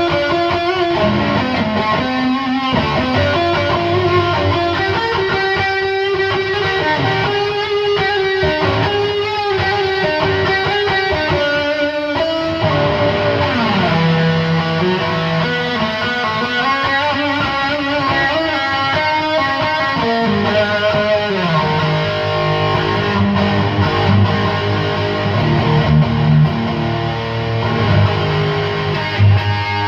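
Electric guitar played through a Chupacabra 100 amplifier, with the gain and master turned up and the clipping diodes engaged, giving a distorted tone. It plays single-note lead lines with sustained and bent notes, then lower, heavier chords in the last third.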